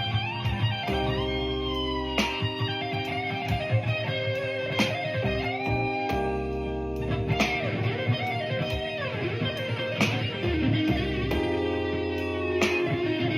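Electric guitar playing blues lead lines with picked notes and string bends, over steady sustained bass notes.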